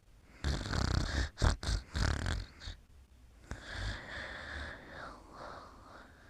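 Snoring: a loud, rough, fluttering in-breath of about two seconds, then a quieter, longer out-breath with a faint whistle in it.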